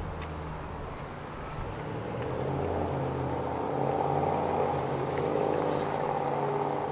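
A motor vehicle's engine running with a steady low hum, growing louder about two seconds in and easing slightly near the end.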